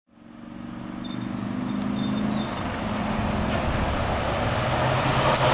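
City bus engine running, fading in from silence over the first second and getting steadily louder.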